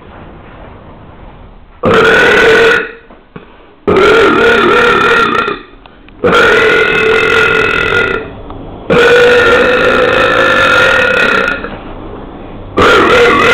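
A person belching loudly on purpose: four long burps, each a steady pitch and lasting from about one to nearly three seconds, with a fifth starting near the end.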